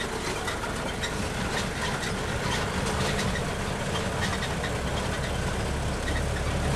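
A tour tram's engine running as it drives along a bumpy dirt track, with frequent rattles and knocks from the ride. The low engine drone grows stronger about four seconds in.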